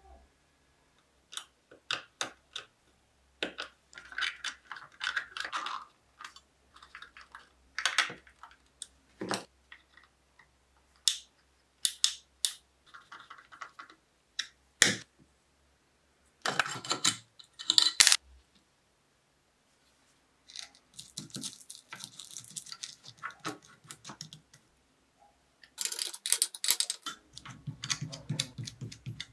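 Scattered sharp clicks and taps of small metal parts and hand tools being handled at a workbench, with a few short stretches of dense scratchy rasping and some duller knocks near the end.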